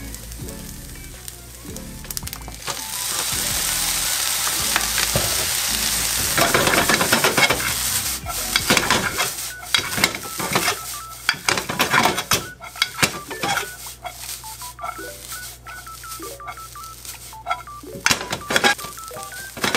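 Soy sauce sizzling loudly on the hot fried rice in a frying pan, starting about three seconds in and lasting a few seconds. Then a spatula scrapes, stirs and turns the rice in the nonstick pan in a run of quick strokes, with a few more near the end. Soft background music plays underneath.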